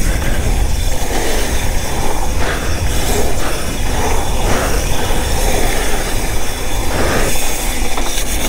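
Mountain bike descending a dirt downhill trail at speed: a steady rush of wind on the microphone over the rumble and rattle of the knobby tyres and bike on the dirt.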